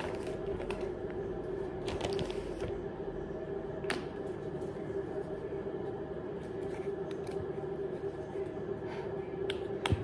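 Handling a plastic lotion bottle and a zipped make-up pouch: a few sharp plastic clicks and light rustles, the loudest click about four seconds in, over a steady low hum.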